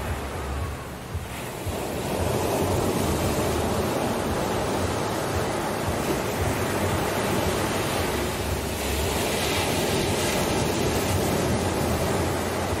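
Ocean surf: waves rushing and washing up onto a sandy beach, an even roar that is softer for the first second or two and then swells louder and stays steady.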